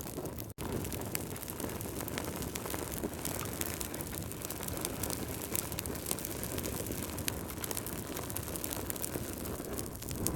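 Wood fire in a fireplace burning, a steady low rush of flames with frequent sharp crackles and pops from the logs. The sound cuts out for an instant about half a second in.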